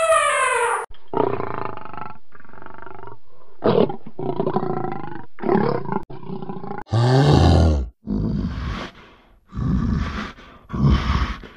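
A run of separate wild animal calls cut one after another: an elephant trumpet trailing off just under a second in, then several shorter calls, and a deep falling lion roar about seven seconds in.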